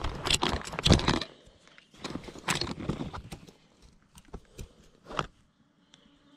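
Close-up handling of fishing line while a nail knot joining leader to fly line is finished. There is a second or two of dense rustling and scraping, then a few separate sharp clicks of nail clippers as the tag ends are trimmed.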